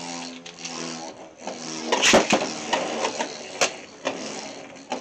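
Beyblade X spinning tops whirring in a plastic stadium with a steady hum, broken by sharp clacks as they collide, the loudest about two seconds in and another a little later.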